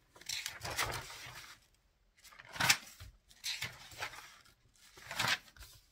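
Stiff translucent vellum pages of a spiral-bound book being turned one after another, each turn a crisp paper rustle. There are four turns; the loudest comes a little under three seconds in.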